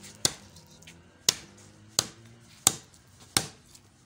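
Heavy cleaver chopping through a slab of fish onto a wooden chopping block: five sharp chops, a little under a second apart.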